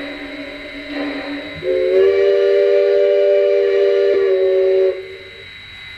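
Bachmann G-scale Shay model's DCC sound decoder playing a steam whistle through its onboard speaker: a softer, lower tone, then a louder, multi-note chime-whistle blast that starts a couple of seconds in and cuts off about five seconds in.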